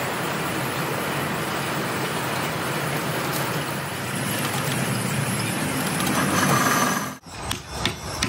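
A steady mechanical rumble and hiss runs until it stops suddenly near the end. Then come sharp hammer taps, about three a second, on the wire turns of a welding-transformer coil being wound on a winding machine.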